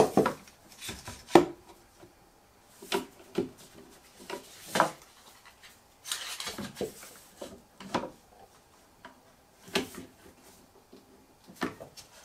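Small woodworking clamps being handled and fitted to a wooden bread-bin carcass during glue-up: a series of sharp knocks and clicks of metal clamp parts against wood and each other, about one every second or so, with a stretch of rubbing and scraping around the middle.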